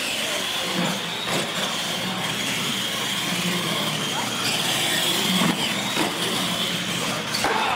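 Radio-controlled monster trucks racing: a steady high whine of their motors and gears over tyre noise on a concrete floor, with a few short knocks along the way.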